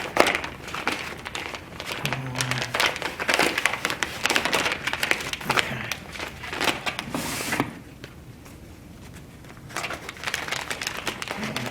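Sheet of adhesive contact paper crinkling and crackling as it is handled and peeled from its backing, with a quieter lull about two-thirds of the way through before the crackling resumes.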